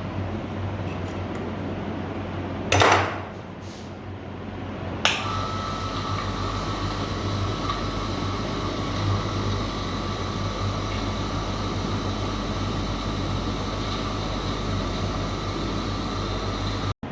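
A short loud noise near three seconds in, then a click about five seconds in as a small electric motor starts and runs steadily with an even whine until the sound cuts off just before the end.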